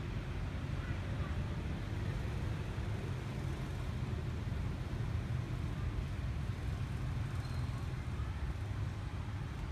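Steady low outdoor rumble, with faint scattered chirps and a brief faint high tone about three-quarters of the way through.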